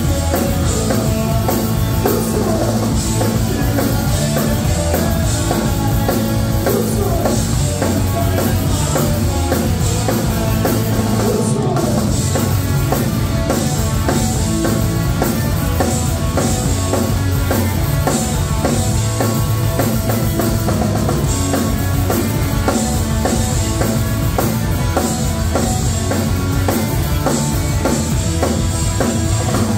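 Pop-punk band playing live: electric guitars, bass and a drum kit, loud and steady.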